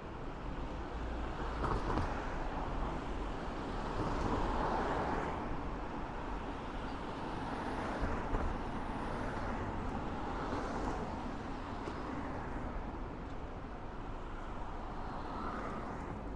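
Traffic on a busy city street: a steady hum of engines and tyres, swelling several times as vehicles pass.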